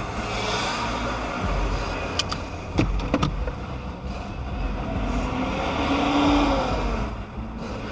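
Car driving noise picked up by a dashcam: steady engine and road rumble, with a few sharp knocks near the middle and a pitched engine sound rising and falling near the end.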